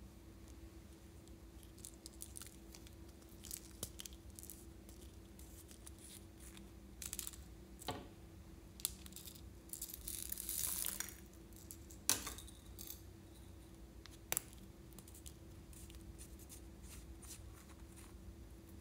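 Hands handling small plastic and clay toy pieces over a glass dish: scattered quiet clicks and taps, a short crinkly rustle about ten seconds in, and a few sharp single clicks, over a faint steady hum.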